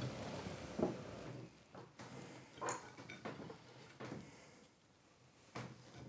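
Faint, scattered clinks and taps of fondue forks and cutlery against plates and the fondue pot, about half a dozen short knocks spread over a few seconds.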